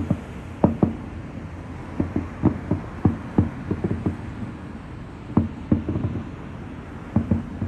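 Aerial fireworks bursting: an irregular run of dull booms and pops, some in quick clusters, over a steady low background rumble.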